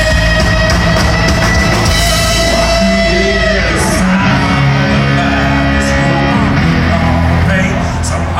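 Loud hard rock music with drums, electric guitar and singing; a long held note ends about three and a half seconds in.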